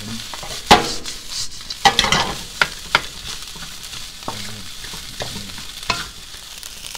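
Fried rice with chicken and egg sizzling in a nonstick pan as a wooden spatula stirs and turns it, with scrapes and knocks of the spatula against the pan over a steady frying hiss. The loudest knocks come about a second in and around two seconds in.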